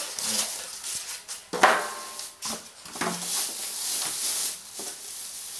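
Plastic wrapping crinkling and styrofoam packing pieces rubbing and squeaking as a digital scale is unpacked, with a sharp louder bump about one and a half seconds in.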